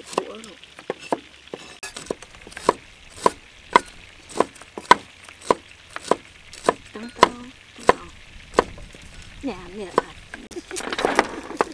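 Steel cleavers chopping carrots and long beans on a thick round wooden chopping block: a steady run of sharp knocks, about two a second, with a few quicker light taps at the start.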